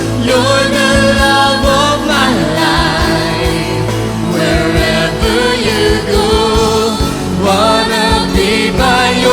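Praise-and-worship music: singers holding and bending long notes over a steady band accompaniment, with no words made out.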